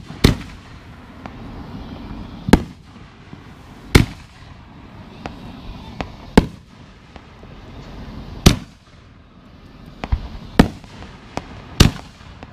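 Consumer aerial fireworks bursting overhead: a string of sharp booms, one every one to two seconds at uneven spacing, some much louder than others.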